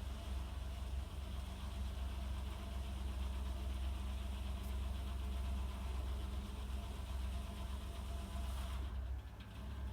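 Ford 4000 tractor engine running steadily at the mill, with a steady low hum. The higher sound drops away briefly near the end.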